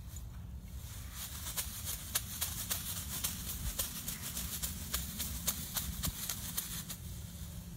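Plastic bag crinkling and crackling as it is rubbed over a horse's neck and back, a quick irregular string of crackles that starts about a second and a half in and fades near the end. A low rumble runs underneath.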